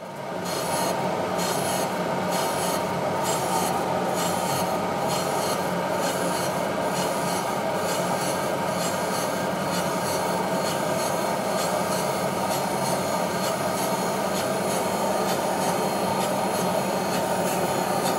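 Camshaft grinding machine, its grinding wheel running against the lobes of a turning camshaft: a steady, harsh grinding over a machine hum. A faint regular pulse, about three beats every two seconds, comes through during the first half.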